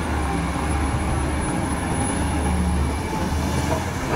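Caterpillar 345C L hydraulic excavator's diesel engine running under load while it digs rock, a steady low rumble.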